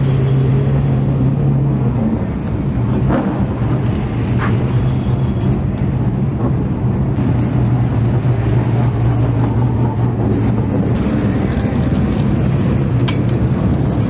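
Late model stock car V8 engine idling steadily, with no revving, and a few short sharp clicks over it.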